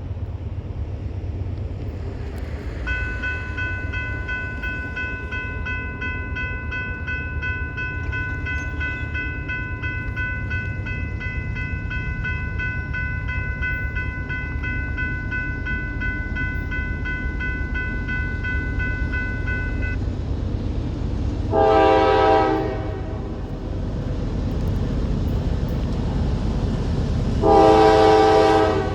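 GE Dash 9-44CW diesel locomotive leading a ballast train, its engine and the train rumbling steadily as it approaches. A bell rings steadily from a few seconds in until about two-thirds of the way through, then the locomotive's air horn sounds two blasts of about a second each near the end.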